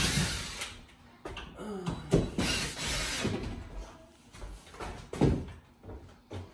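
Cordless drills driving screws into drywall ceiling panels in short runs, with a few sharp knocks against the boards.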